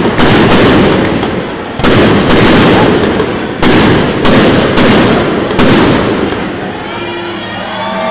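Aerial fireworks shells bursting overhead: about six sharp bangs in the first six seconds, each trailing off, then fading near the end.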